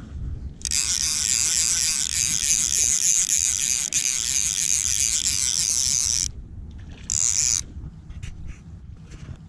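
Fly reel's click-and-pawl drag buzzing as line is pulled off the spool: one long run of about five and a half seconds, then a short second burst about a second later.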